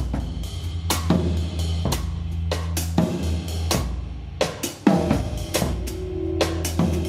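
Live band music with a loud drum kit: kick, snare and cymbal hits on a steady beat over a sustained bass line, with a short drop in level followed by a hard hit near the five-second mark.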